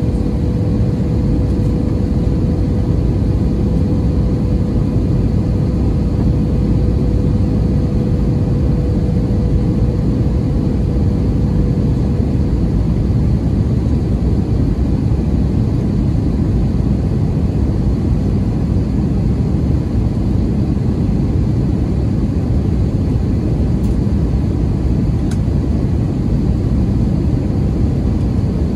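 Steady cabin roar of an Airbus A320-232 in flight, heard from a window seat beside the wing: the IAE V2500 turbofan and rushing airflow. A faint steady hum runs under the roar for the first twelve seconds or so, then fades out.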